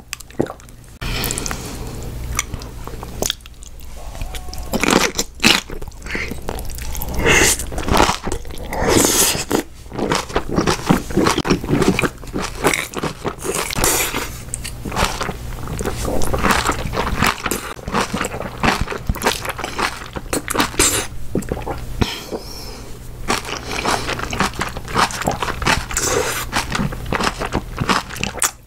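Close-miked chewing and crunching of a mouthful of Chapagetti black-bean instant noodles and napa cabbage kimchi, with many irregular crunches and clicks and a steady low hum underneath.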